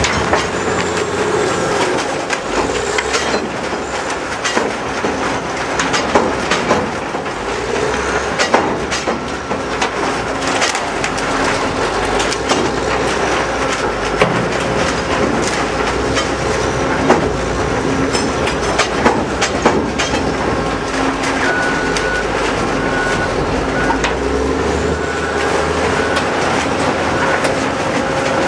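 Vertical-infeed biomass grinder (wood and bark hog) running under load as it shreds wood waste. A continuous dense mechanical din is broken by frequent, irregular sharp knocks and cracks.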